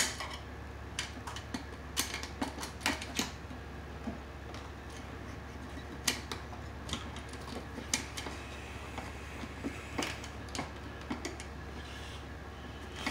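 Irregular clicks, taps and light knocks of Romex cable and copper wires being handled against a metal electrical junction box, scattered through with quieter gaps between them.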